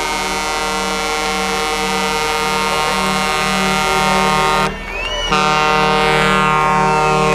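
Semi-truck air horns sounding in one long, steady chord, cut off briefly about five seconds in and then sounding again a little louder as the truck draws alongside.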